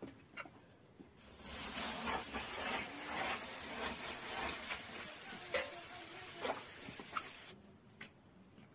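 Steady hissing and sizzling from a wet cloth being wiped over the hot clay walls of a tandoor oven, with scattered clicks and taps. It starts about a second in and stops shortly before the end.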